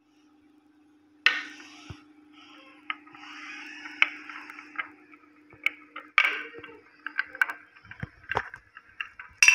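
Glass marble rolling down a wooden zigzag marble track, clicking and knocking irregularly against the curved wooden channel walls with a light rolling rattle. The clicks start about a second in.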